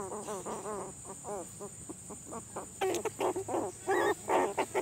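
Puppies whining and yelping in quick runs of short rising-and-falling cries, loudest in the second half.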